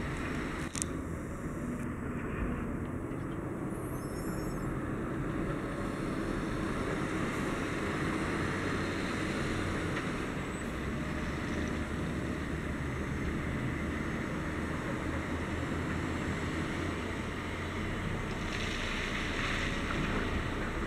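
Tatra 815 Terno dump truck's diesel engine running steadily as the truck drives slowly, a continuous low rumble. A hiss rises over it briefly near the end.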